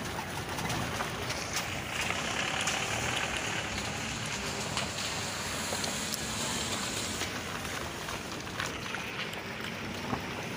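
Outdoor wind noise: a steady rush across the microphone, a little stronger from about two to seven seconds in, with a few faint ticks.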